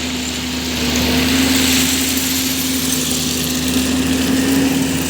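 JCB JS205 excavator's diesel engine running steadily, with a constant mid-pitched tone over a low hum that grows slightly louder about a second in.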